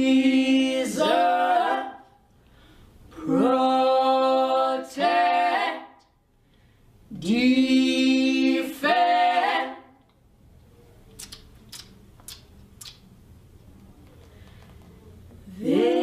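Musical-theatre cast recording: a voice sings three long phrases, each ending on a held note, with short gaps between them. After that comes a quieter stretch with a few faint clicks, and the singing starts again near the end.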